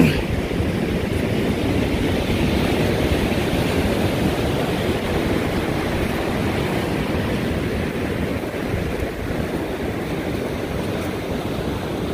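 Steady rushing of surf breaking on the beach, mixed with wind.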